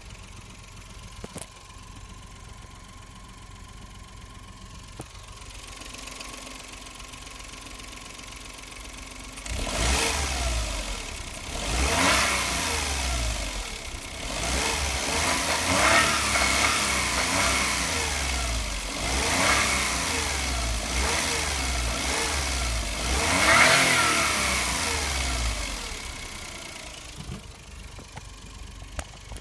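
Suzuki Every Wagon DA62W's 660 cc three-cylinder turbo engine idling, then revving up in several rising sweeps as the van pulls away and accelerates, easing back to idle near the end. A high steady tone rides over the engine while it accelerates. This is the abnormal noise that, with the engine warm, comes only under acceleration when the turbo comes on.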